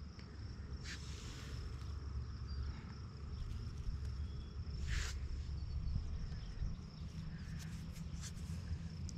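Hands handling a clump of dug soil around a coin, with soft rustles and two sharper crackles, about a second in and about five seconds in, over a low wind rumble on the microphone and a steady high-pitched insect buzz.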